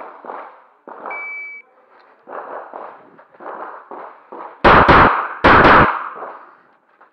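A short high electronic beep, then about three and a half seconds later two loud sharp bangs, about a second apart, each a quick double crack.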